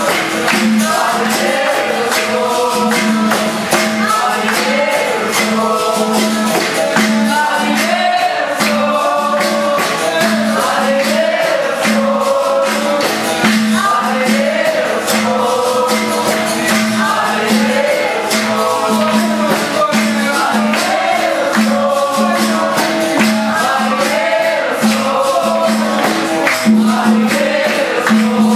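Capoeira Angola roda music: berimbaus, pandeiro jingles and an atabaque drum keep a steady, fast rhythm while a group sings.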